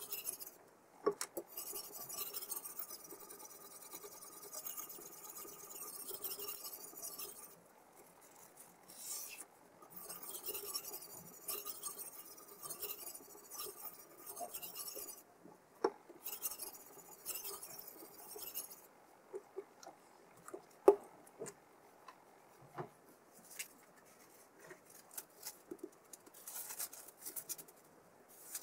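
Abrasive stone of a Kosim guided sharpening system rubbed along the edge of an M390 steel chef knife, a gritty hiss in long strokes with short pauses. In the last third the strokes stop, giving way to scattered light clicks and taps, one of them sharp.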